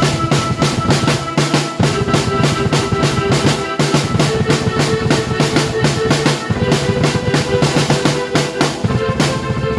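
Drum kit and keyboard playing together: a fast, busy beat of snare, bass drum and cymbals over held keyboard chords and notes.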